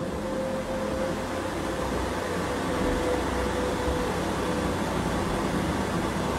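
A steady low mechanical hum under an even background noise, with a faint thin tone that comes and goes.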